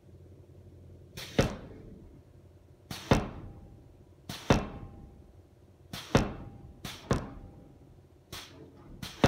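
Homemade pneumatic forging power hammer, a 69 kg ram, striking hot steel bar in single foot-controlled blows. There are about seven blows, roughly one every second to second and a half, each a short rush of air followed by the sharp strike.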